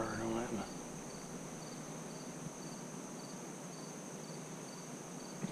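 Insects trilling: a steady high-pitched drone, with a second insect chirping in short pulses about three times a second.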